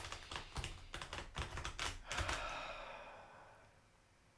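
A deck of tarot cards being shuffled by hand: a quick run of card clicks for about two seconds, then a soft rush that fades away.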